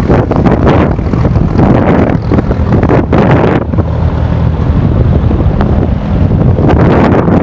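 Loud wind buffeting the microphone on a moving boat, with a low steady engine hum underneath.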